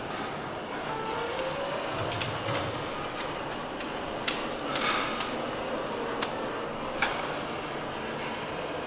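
Ramen-kitchen work sounds: a steady background hum with a handful of sharp metal and crockery clinks and knocks, the loudest about seven seconds in.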